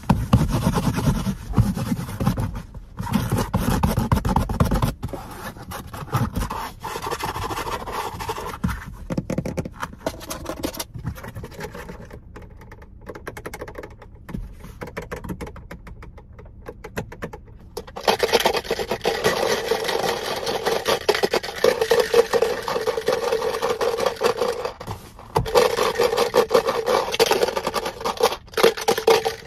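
Hands rubbing and scratching a car seat's upholstery and headrest. From about two-thirds of the way in, a louder continuous scraping takes over, with a short break before it resumes.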